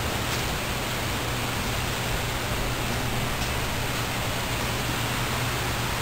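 Steady, even hiss with a low hum underneath, unchanging throughout, with no distinct events.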